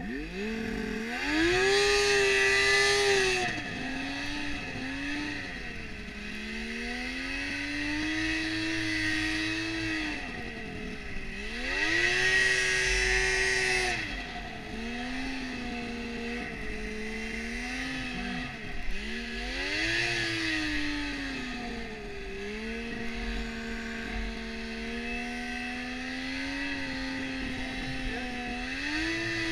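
Yamaha snowmobile engine revving and easing off again and again as it rides through powder, with three strong throttle surges near the start, in the middle and about two-thirds through.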